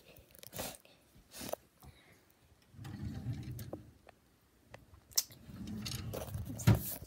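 Handling noise from a phone carried against a shirt while walking: scattered rustles and clicks, two stretches of low rumbling rubbing and thudding, and a sharp knock near the end.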